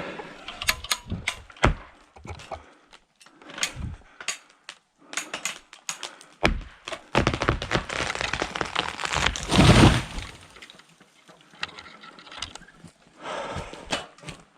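A felled tree coming down: repeated sharp cracks and snaps of breaking wood, building into a long, loud crash about seven to ten seconds in, then scattered knocks.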